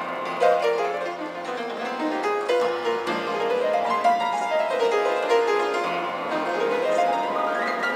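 Upright piano played fast and intensely, in rapid runs of notes that sweep down and up the keyboard again and again, climbing high near the end.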